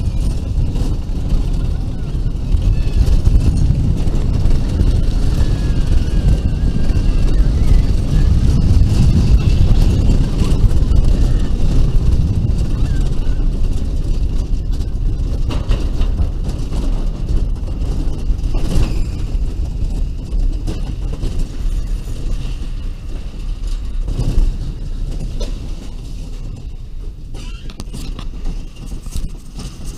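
Bobsled roller coaster car running down its trough: a loud, continuous low rumble of wheels and wind on an onboard microphone, with a few knocks along the way. The rumble eases off near the end as the car slows on the return run.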